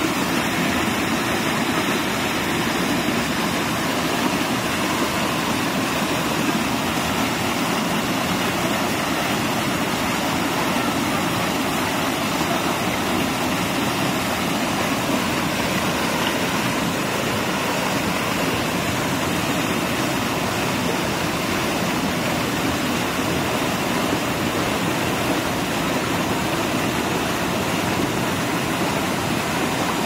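Whitewater rushing and splashing over a rocky stream cascade: a steady, unbroken rush of falling water.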